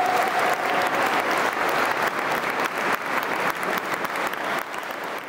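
Audience applauding: dense, steady clapping from many hands that thins and fades out near the end.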